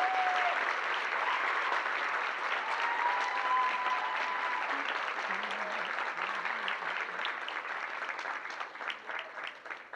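Audience applauding, the clapping thinning near the end into scattered separate claps as it dies away.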